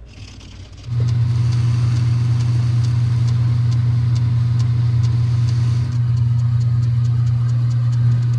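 Metal lathe starting up about a second in and then running with a loud, steady motor hum and a light, regular ticking, while a tool faces off the end of a small steel shaft held in a collet. About six seconds in the sound shifts slightly and the ticking quickens, as the work moves on to center drilling from the tailstock.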